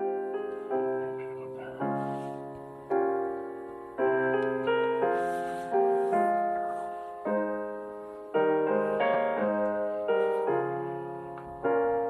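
Slow solo piano music: sustained chords struck about once a second, each ringing and fading before the next.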